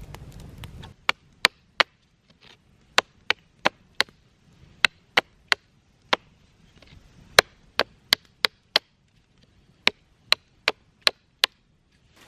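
Chopping on wood: about twenty sharp strikes in short quick runs, a few a second, with pauses between the runs.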